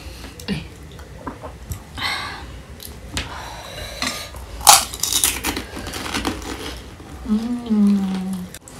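Spoons clinking and scraping on ceramic bowls and plates, mixed with crisp crunches of pani puri shells being bitten, in scattered sharp clicks with the sharpest a little after halfway. A short hummed voice comes near the end.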